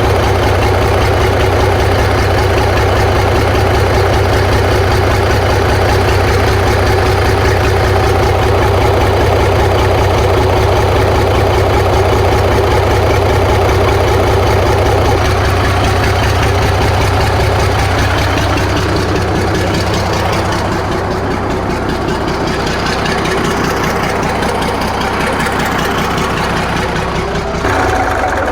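Kenworth K100 cabover's diesel engine idling steadily, a little quieter in the second half. The engine is one the owner judges worn out and needing replacement.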